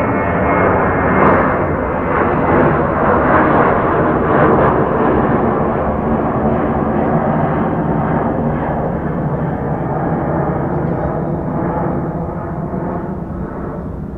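Jet airliner's engines, loud with a rough crackle, slowly fading away in the second half as the aircraft moves off.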